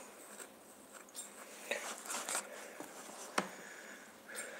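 Faint handling noise: quiet rustles and light clicks of hands fiddling with a small object close to the microphone, with one sharper click about three and a half seconds in.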